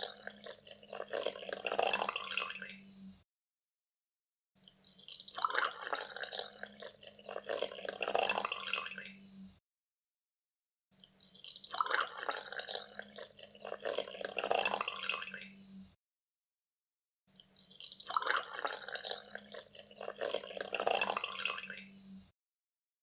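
Coffee being poured, in four separate pours of about five seconds each with short silent gaps between them.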